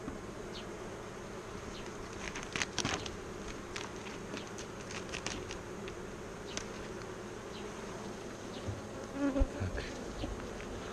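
Honeybee colony buzzing steadily around an opened hive, with scattered sharp clicks and a few low knocks as frames are handled.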